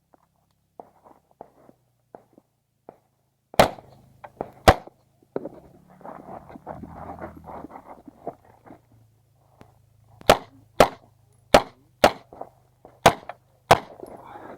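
Shots from a 9mm Uzi Pro pistol fired on an IPSC stage: two shots about a second apart, then, after a stretch of scuffing and clattering movement noise, a string of six shots about half a second to a second apart.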